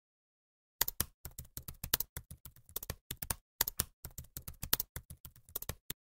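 Computer-keyboard typing sound effect: a quick, irregular run of key clicks starting about a second in, with a short break near the middle, stopping just before the end.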